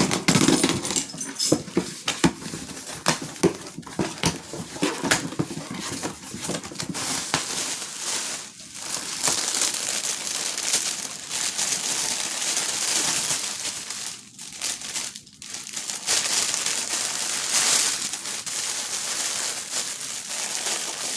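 Packaging rustled and crinkled by hand as a box is opened and unpacked, with many sharp crackles. It goes quiet briefly twice, about halfway through and again a little later.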